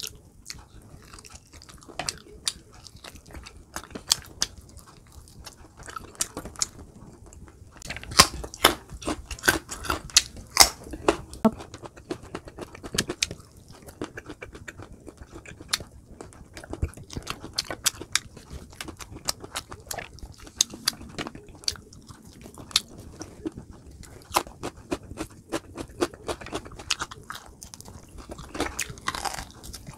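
Close-miked chewing and biting of roasted chicken: a steady run of wet mouth clicks and smacks, busiest from about eight to twelve seconds in.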